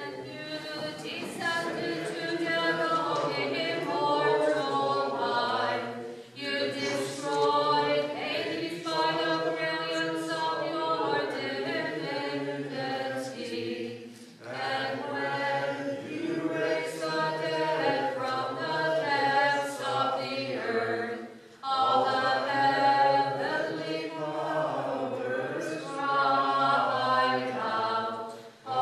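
A group of voices singing Byzantine liturgical chant a cappella, in four phrases with short breaks between them.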